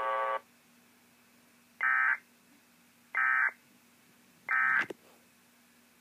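Emergency Alert System end-of-message data tones: three short, shrill warbling bursts about 1.3 s apart, the signal that closes the flash flood warning broadcast, heard from a laptop's speakers over a faint steady hum. Just after the start, a steady buzzy tone cuts off.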